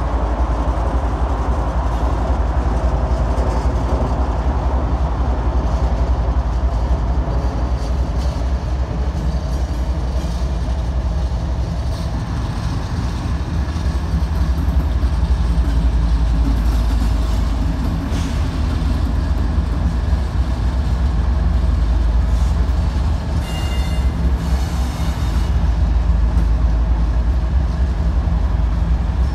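Double-stack container freight train passing, led by a CSX diesel locomotive and several Union Pacific diesel locomotives: the engines run with a heavy, steady low rumble as the units go by, and the container cars roll past near the end. A brief high-pitched tone sounds about three-quarters of the way through.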